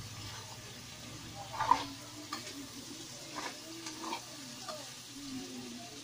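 A metal ladle stirring chicken pieces in a metal wok, scraping and knocking against the pan a few times. The loudest knock comes just under two seconds in, while the chicken sizzles in the pan.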